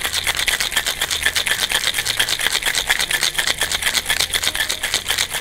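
Ice cubes rattling hard inside a Boston shaker (shaker tin sealed onto a mixing glass) being shaken vigorously, a fast, even run of clacks, to chill and mix the cocktail.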